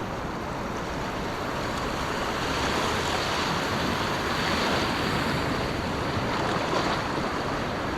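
Ocean surf washing against a rocky shore ledge: a steady hiss of breaking water that swells a little in the middle and eases again.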